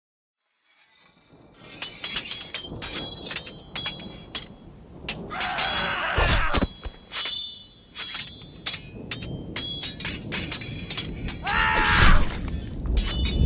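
Sound-effect recording of glass breaking: after about a second of silence, a dense run of sharp cracks and ringing tinkles, with two larger crashes about 6 and 12 seconds in.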